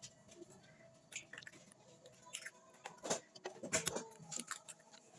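Scattered light clicks and knocks of kitchen items being handled, irregular and fairly faint, with a busier cluster in the second half.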